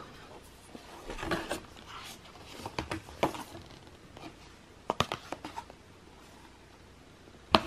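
Hands handling a paperboard Apple Watch box and its fold-out card sleeve: a scattering of light taps, scrapes and rustles of card. The sharpest clicks come about five seconds in and near the end.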